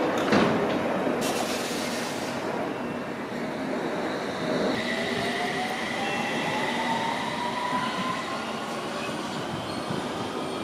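London Underground District Line S7 Stock train running on the track, with a sharp knock just after the start. About five seconds in, a train pulls away from the platform, its traction motors giving a whine that rises slowly in pitch as it accelerates.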